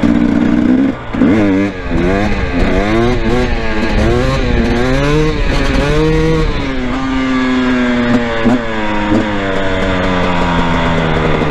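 Two-stroke dirt bike engine revving under throttle control during a slow wheelie: quick rev blips early on, then longer rises and falls in pitch, holding steady for a moment past the middle before rising again.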